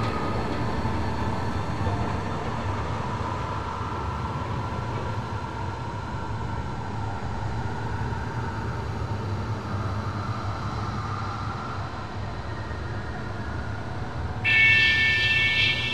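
Synthesised electroacoustic sound: a steady low rumble with faint drifting tones above it. About a second and a half before the end, a cluster of bright, steady high tones comes in suddenly and louder.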